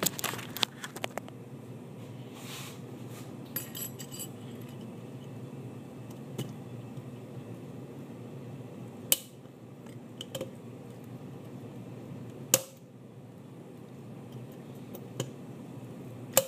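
Small metal clinks and scrapes as a C-clip is worked into a Holset HX35 turbocharger's bearing housing by hand, with sharper clicks about halfway through, a few seconds later, and near the end, over a steady low hum.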